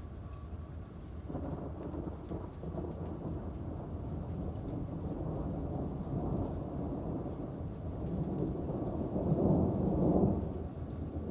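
Rolling thunder rumbling low over steady rain. It swells from about a second in and is loudest near the end, then begins to fade.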